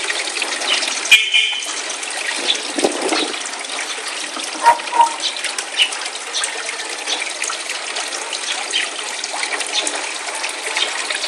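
Koi pond water trickling and splashing steadily, with many small sharp splashes throughout. A brief high chirp about a second in and two short clear tones near the middle stand out over it.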